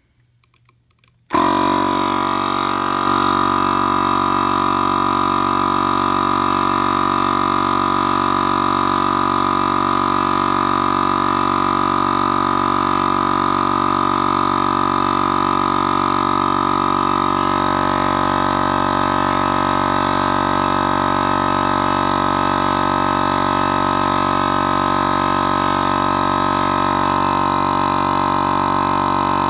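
Small portable electric air compressor switched on about a second in, then running with a loud, steady, pitched drone as it pumps the launcher's air pressure up past 60 PSI.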